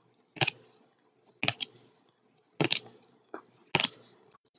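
Football trading cards being flicked through one by one by hand: a sharp double snap of card stock about once a second, each a card moved off the stack.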